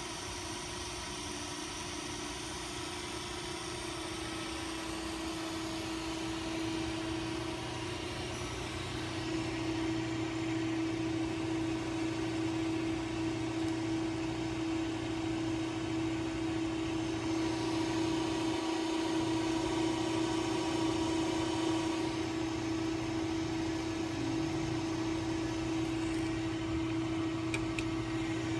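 Steady electric hum of a powered-up Arpeco 13-inch slitter rewinder, one held tone over a light whir, growing gradually louder. A few light clicks come near the end.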